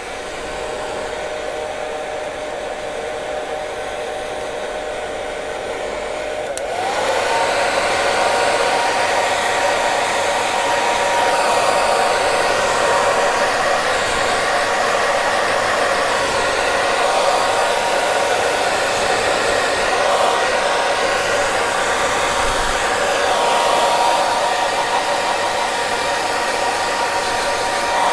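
Hair dryer running with a steady rush of air and a motor whine. About seven seconds in it switches to a higher speed setting: the whine slides up in pitch and the airflow gets louder and brighter, then holds steady.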